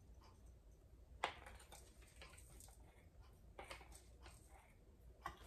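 Near silence: room tone with a few faint clicks, one sharp click about a second in and a small cluster past the middle, from a seasoning jar and spoon being handled.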